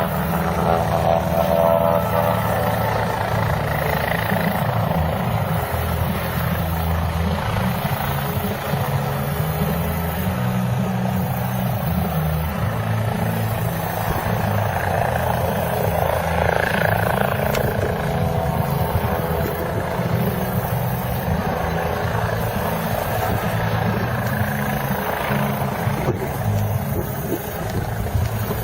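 Helicopter's rotor and engine running at a steady, loud level, with no clear change in pitch or loudness.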